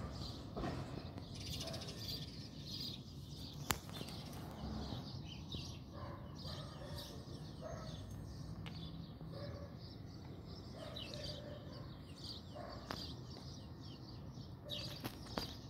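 Small birds chirping again and again over a faint, steady low rumble, with a sharp click about four seconds in and another couple near the end.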